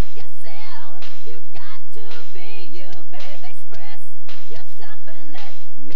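Pop song playing: a lead voice sings long notes with a wavering vibrato over a drum beat.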